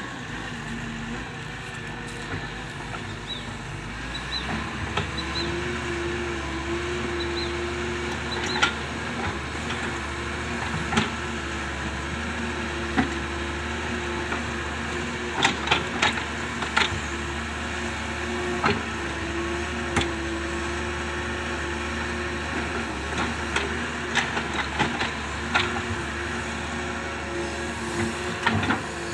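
Doosan DX excavator running under load as it pushes soil: a steady engine drone with a wavering tone that comes and goes, and sharp knocks scattered irregularly through it, thickest in the second half.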